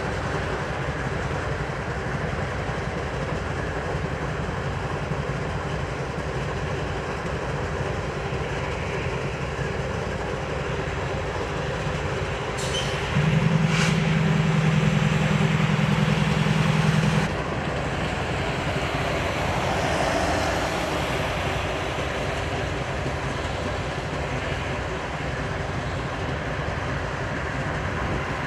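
Freight train rolling past: a steady rumble of rail cars on the track. About halfway through, a loud low steady tone sounds for about four seconds, starting and stopping abruptly.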